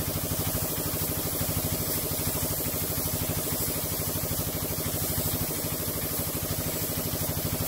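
Piston air compressor running with a fast, even pulsing, while the air spray gun hisses steadily as it lays a light dust coat of paint with the gun closed right down. The spray hiss cuts off at the end while the compressor runs on.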